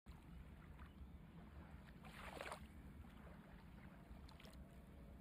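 Near silence: a faint low hum, with a brief soft hiss about two seconds in and a few faint ticks near the end.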